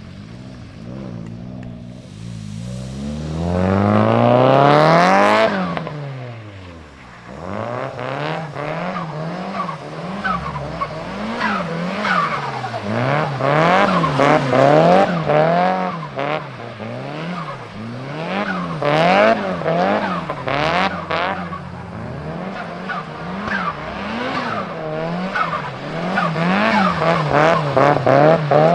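Nissan Silvia S15's tuned SR20DET turbocharged four-cylinder engine being revved hard as the car drifts on wet tarmac, with tyre noise. The revs climb and fall once a few seconds in, then swing up and down about once a second.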